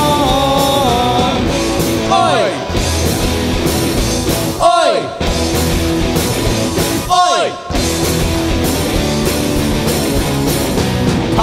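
Live punk rock band playing an instrumental break on electric guitars, bass guitar and drums. Twice, about five and seven seconds in, the band drops out for a moment under a falling slide in pitch.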